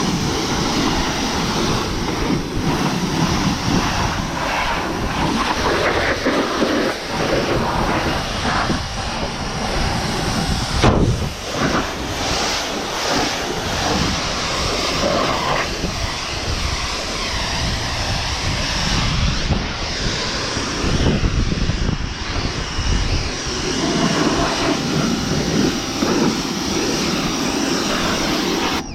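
A pressure washer running and spraying steadily, a continuous loud rushing noise with small rises and dips.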